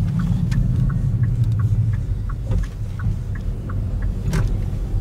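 Passenger-cabin sound of a car rolling slowly: a steady low engine and road rumble, with the turn indicator ticking about three times a second as it turns into a driveway. A single sharp knock about four seconds in.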